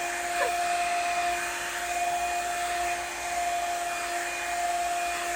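Revlon One-Step Volumizer hot-air brush running steadily, its fan blowing with a steady motor whine.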